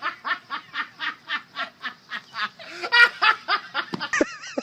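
A person laughing hard in a long run of rhythmic 'ha-ha' bursts, about five a second. A wavering high-pitched sound comes in near the end.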